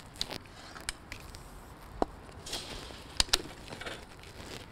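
Sharp clicks and knocks of a 16mm film camera rig being handled and lifted off a tripod head. There is a single click about two seconds in and two louder clicks close together just after three seconds.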